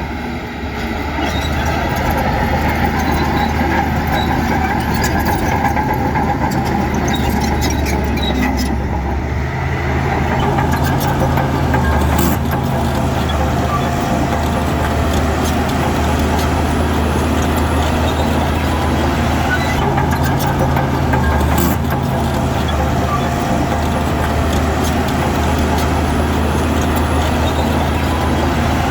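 Diesel engine of heavy earthmoving machinery running steadily, with a few sharp clanks now and then.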